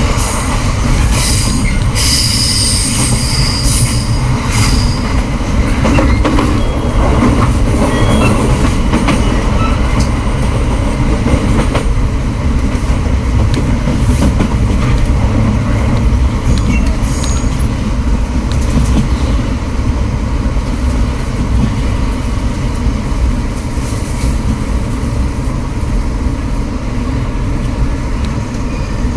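Running noise inside a commuter train car: a steady rumble of wheels on the track. About a second in, the wheels squeal high-pitched for a few seconds.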